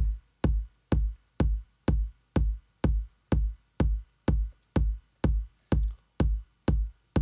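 Layered electronic kick drum programmed in Native Instruments Maschine, a short sub kick with a punchier kick on top, looping at a steady pulse of about two hits a second. Each hit is a click that sweeps quickly down into a deep boom.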